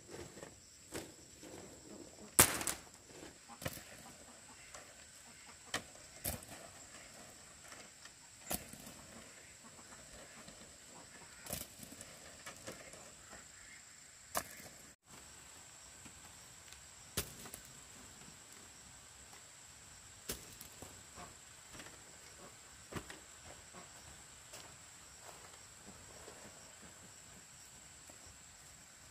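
Irregular sharp knocks or taps, one every one to three seconds, the loudest about two and a half seconds in, over a faint steady high-pitched whine.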